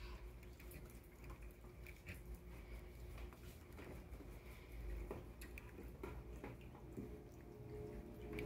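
Faint scattered clicks and rustles of a small child's hands working inside a paper bag that holds an empty açaí box, over a low steady hum.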